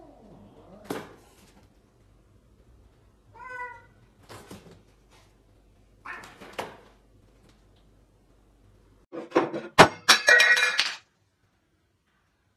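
Two house cats squabbling: a short meow a few seconds in and a few light thumps and scuffles, then a loud flurry of thumps with a cat's cry near the end, which cuts off suddenly.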